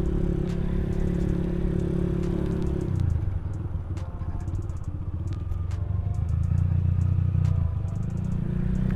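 Motorcycle engine and exhaust running while the bike is ridden; the engine note drops lower about three seconds in and climbs back up near the end. Light rattles and ticks sound over it.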